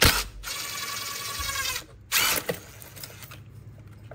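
Cordless power tool spinning a 5/16-inch socket on an extension, backing out a fuel shutoff solenoid screw on a Bosch P7100 injection pump: a click, a steady whir for about a second and a half, then a second, shorter burst a little after two seconds in.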